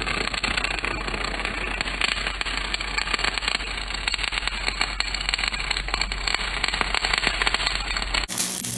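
Electric arc welding on steel tubing: a continuous, irregular crackle and sizzle from the arc over a steady low hum. It stops abruptly near the end.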